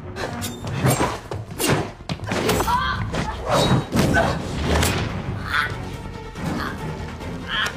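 A run of fight thumps and bangs, bodies hitting the metal elevator walls, over a tense film score.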